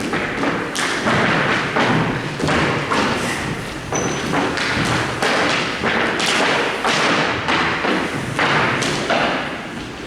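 Rapid, repeated thuds and knocks.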